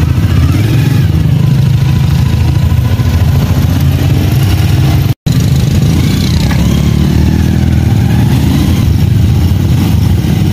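Honda motorcycle of a tricycle running under way, heard from inside its sidecar as a loud, steady low drone. The sound cuts out for an instant about five seconds in.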